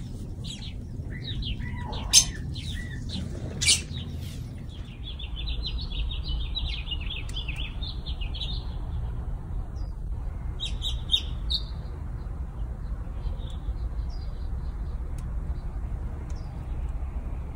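Small birds chirping, with a rapid run of high chirps from about five to nine seconds in and a few more near eleven seconds, over a low steady rumble. Two sharp knocks about two and three and a half seconds in.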